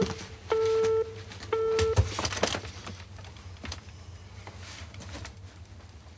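Telephone busy tone: a single-pitch beep pulsing about half a second on, half a second off, ending about two seconds in, followed by a faint background with small scattered clicks.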